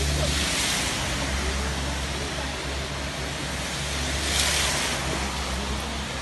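Outdoor background noise: a steady rushing hiss with a low hum beneath it. The hiss swells twice, about half a second in and again about four and a half seconds in.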